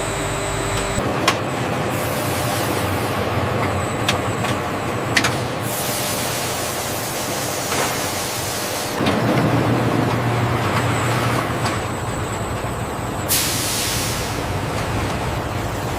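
Food-processing line machinery running steadily, with a few sharp clicks and two long hisses like compressed-air releases, one about six seconds in and a shorter one near the end.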